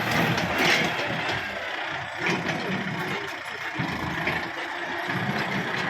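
Kubota MU5501 tractor's diesel engine running steadily, with a few short knocks scattered through.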